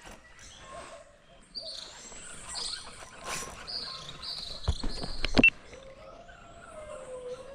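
Birds calling with high whistles, and a quick run of sharp clicks about five seconds in.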